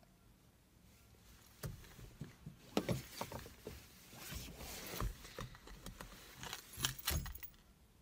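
Handling noise inside a car: an irregular run of rustles, clicks and light clinks as objects and clothing are moved about. It starts about a second and a half in and stops shortly before the end.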